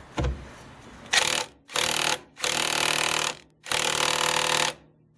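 Earthquake XT 20V cordless 3/4 in. impact wrench hammering in four short bursts, starting about a second in, each about half a second to a second long. The motor mount bolt is seized and does not break loose under the wrench.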